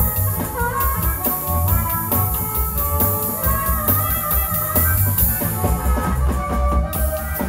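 Chicago-style electric blues band (guitar, bass, drums and harmonica) playing, with a steady drum beat, a strong bass line and held melody notes.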